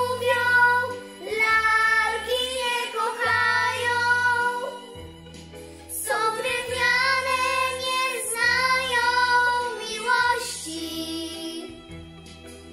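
Two young girls singing together over a recorded backing track with a steady bass line. The singing stops near the end, leaving only the accompaniment.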